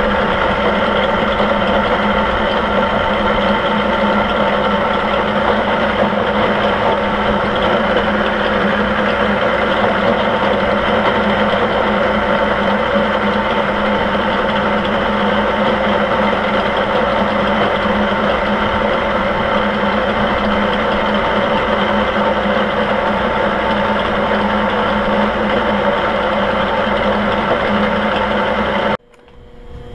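Milling machine spindle turning a boring head with a triangular insert on power feed, boring out a hole in thick plate: a loud, steady machine whine with several constant tones. It stops abruptly about a second before the end.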